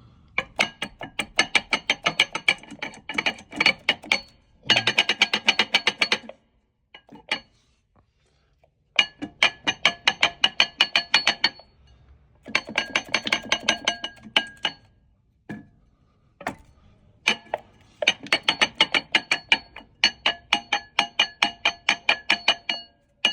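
Dual-mass flywheel from a BMW M60B30 V8 being worked back and forth by hand. Its two halves clack against each other in quick runs of ringing metal knocks, several bursts of a few seconds with pauses between. The free play and knocking are the sign of a worn dual-mass flywheel.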